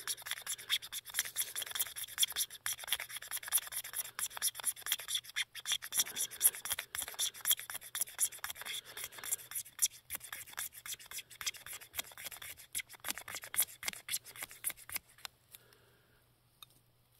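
Knife blade scraping shavings off the side of a plastic O'Keeffe's Lip Repair tube in quick, repeated strokes, stopping near the end.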